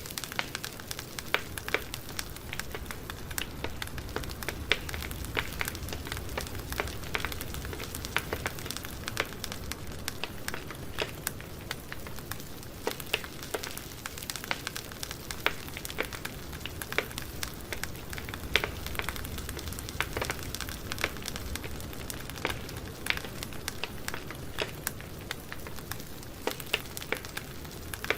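Campfire burning, with a low steady rumble and irregular sharp crackles and pops from the burning wood.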